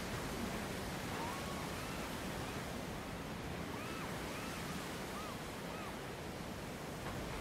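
Steady wash of sea surf and wind on the coast. In the middle come about seven faint, short whistled calls, each rising and falling.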